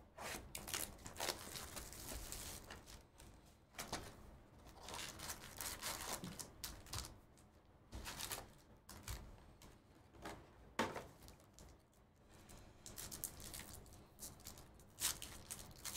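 Trading-card box and packs being torn open by hand: a run of rips, crinkles and rustles in irregular bursts with short pauses between.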